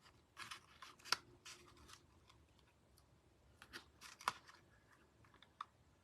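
Faint rustles and light scrapes of paper and cardstock being handled, a few short ones scattered through with quiet between them.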